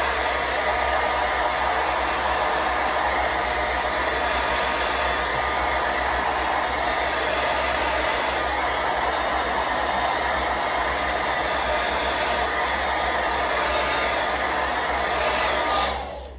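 Handheld hair dryer with a comb attachment blowing steadily, with a thin steady whine from its motor. It is drying melting spray on a lace wig's hairline. It is switched off near the end.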